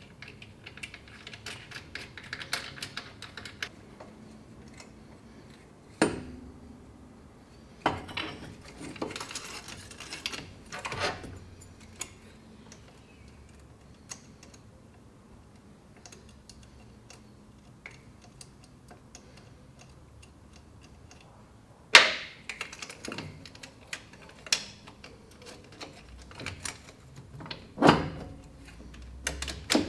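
Hand tools and metal engine parts clicking and clanking as parts are fitted in a car's engine bay, with several sharper knocks, the loudest about twenty-two seconds in.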